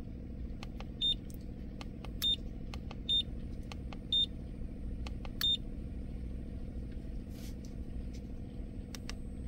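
Handheld clamp meter beeping as its mode button is pressed: five short high beeps over about four and a half seconds, with faint button clicks in between, as it steps through its measuring modes. A low steady hum runs underneath.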